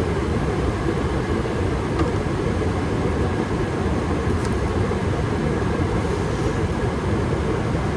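Furnace running with its burners firing: a steady low rumble of flame and moving air that holds an even level throughout.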